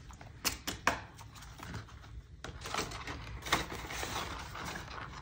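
Paper banknotes being handled and slid into a clear plastic pocket of a ring-binder cash envelope. There are two sharp clicks about half a second and a second in, then soft rustling of paper and plastic with small ticks.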